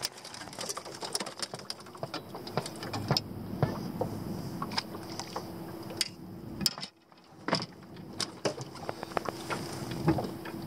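Scattered sharp clicks and knocks over a faint steady hum, dropping out briefly about seven seconds in.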